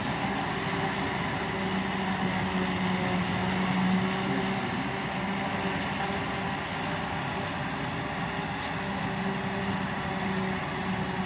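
Tractor engine and tractor-mounted corn silage harvester running steadily under load, a continuous mechanical drone with a held hum whose pitch wavers slightly.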